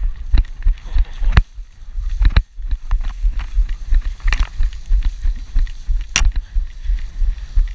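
Irregular low thumps and rumble with a few sharp clicks, the kind of handling and wind noise a camera picks up while it is carried.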